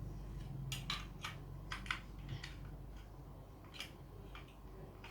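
Small plastic Lego pieces being handled and pressed together: several short, light clicks, most of them in the first two seconds, with a few more later.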